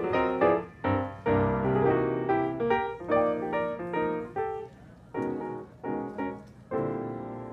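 Background piano music: a melody of struck notes that slows near the end and settles on a held note that fades away.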